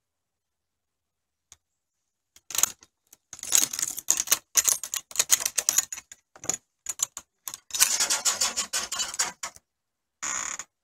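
Metal latch on a wooden gate rattling and clacking as it is worked by hand, a quick irregular run of clicks and clatter lasting several seconds. A short, even scraping noise follows near the end.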